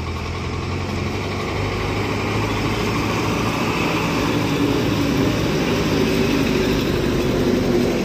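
A full-size bus's diesel engine running as the bus drives along the road towards the listener and passes, a steady low hum that grows slowly louder.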